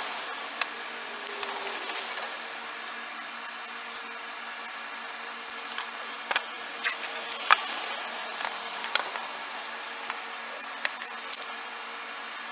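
Tape being pulled off the roll and wrapped around a knife blade: crackling, rustling peel with scattered sharp little clicks, heaviest in the middle.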